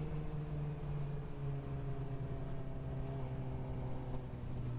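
Suzuki GSX-R sportbike's inline-four engine running at light throttle in traffic. Its pitch drops a little about a second in, then drifts slowly lower as the bike eases off, over a low rumble of wind and road.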